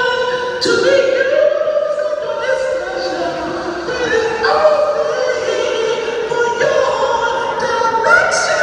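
Recorded music with choir-like singing in long held notes, played over loudspeakers.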